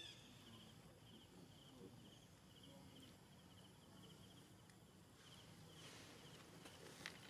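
Faint outdoor ambience with an insect chirping in an even, repeating rhythm a few times a second; the chirping stops about five seconds in and comes back briefly. A single soft click near the end.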